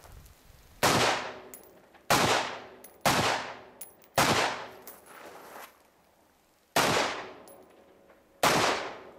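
Six rifle shots fired at an uneven pace, about a second apart with a longer pause in the middle. Each is a sharp report followed by a fading echo.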